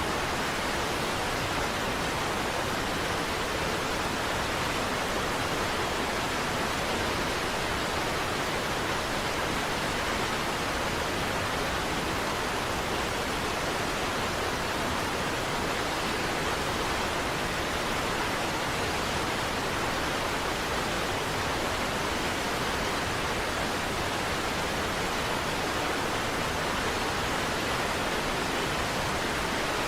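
Niagara Falls' falling water: a steady, even rush of noise without breaks or separate sounds.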